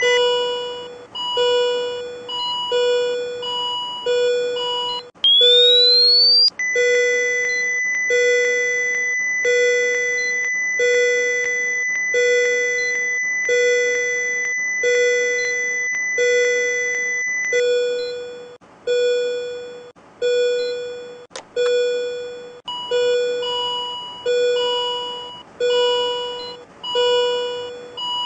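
Electronic beeps from a cardiac monitor/defibrillator simulator app. A repeating alarm tone sounds about once a second throughout. About five seconds in, a rising whine of the defibrillator charging at 300 joules gives way to a steady high charged-and-ready tone, held for about eleven seconds. A single click follows a few seconds later.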